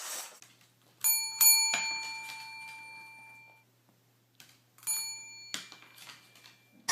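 A small bell struck twice in quick succession, ringing and fading over about two seconds, then struck once more near the end.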